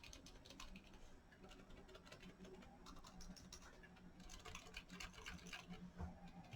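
Quiet typing on a mechanical keyboard with Boba U4 Silent tactile switches: a fast, irregular run of soft, muffled key clicks, with a couple of louder key hits near the start and about six seconds in.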